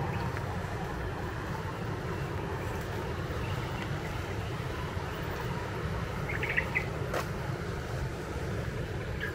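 Steady low outdoor rushing noise, with a brief cluster of bird chirps about six and a half seconds in, a single sharp click just after, and another chirp at the end.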